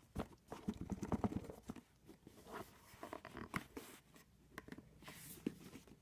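Hands handling a tablet's retail box: scattered scratchy rustles and small clicks and taps of cardboard and packaging, with a brief hissing rustle about five seconds in.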